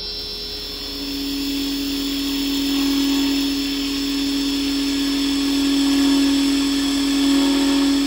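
Carbide chisel cutting a spinning beech blank on a wood lathe. From about a second in there is a steady cutting hiss with a steady low tone under it, over the lathe's running hum.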